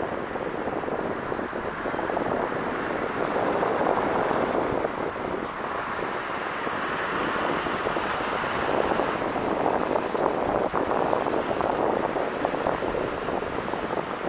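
Diesel railcar approaching slowly along the track, its running noise a steady rush mixed with wind on the microphone.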